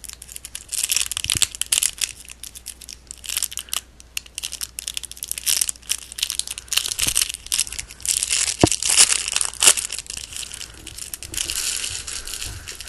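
Plastic trading card pack wrapper crinkling and tearing as it is worked open by hand, an irregular crackle with sharp snaps.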